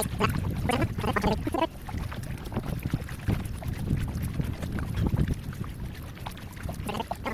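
Kayak paddling: water splashing and dripping from the paddle strokes, over a steady low rumble.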